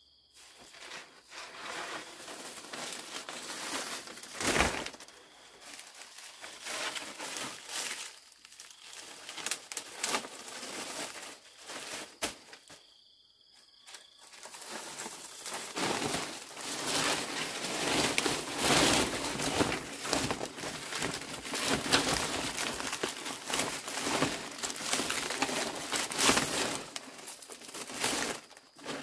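Crinkling and rustling of something dry being handled, with a quiet pause partway through, after which it grows denser and louder.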